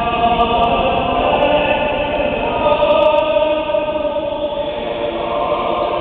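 Choir singing liturgical chant in long, slowly changing held notes, echoing through a large stone cathedral.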